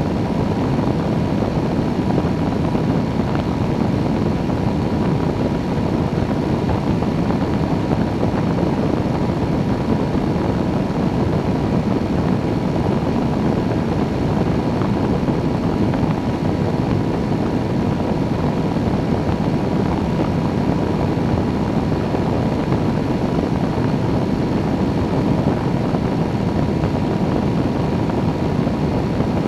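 Weight-shift microlight trike in steady cruise: the engine and pusher propeller drone evenly under a constant rush of wind over the wing-mounted camera.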